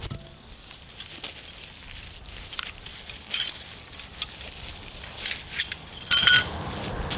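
Bubble wrap crinkling as it is unwrapped from a core aerator's metal tines, with scattered small clicks. About six seconds in comes a louder burst of sharp metallic clinks with a brief ring.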